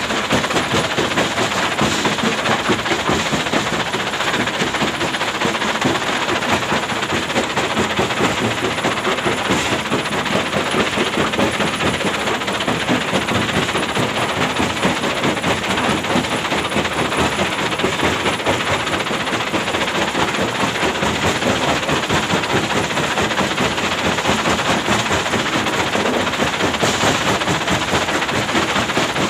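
Hyundai excavator's diesel engine running steadily under load, with a dense, rapid rattling clatter.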